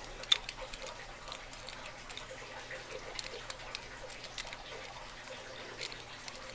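A lock pick working the pins of a lock under a tension wrench: irregular small metallic clicks and light scrapes, the sharpest click about a third of a second in.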